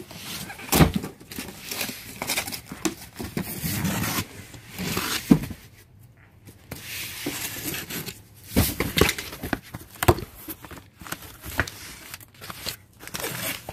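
Cardboard shipping box being handled and opened: thumps and knocks as it is lifted and set down, a box cutter slitting the packing tape, then the flaps pulled back and packing paper crinkling.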